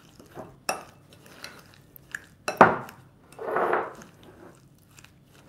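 A metal spoon stirring a thick ricotta mixture in a glass bowl: the spoon clinks and scrapes against the glass, with a sharp clink about two and a half seconds in, followed by a longer scrape.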